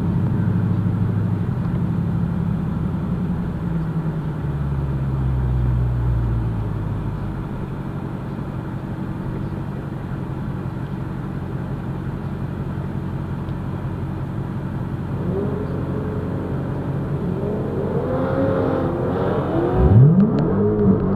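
Supercharged 6.2-litre Hemi V8 of a Hellcat Redeye idling and creeping along, heard from inside the cabin, its note falling over the first few seconds as it slows. Near the end, rising revs of other drag cars accelerating away down the strip come in over the idle.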